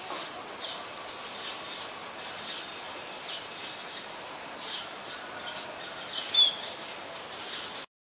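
Small birds calling in short, high chirps, about one or two a second, over outdoor background hiss, with one louder chirp about six and a half seconds in. The sound cuts off suddenly near the end.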